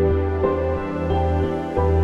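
Instrumental background music: held notes over a steady bass, the notes changing several times.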